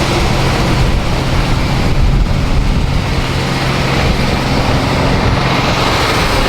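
An engine running steadily with a constant low hum and no change in speed.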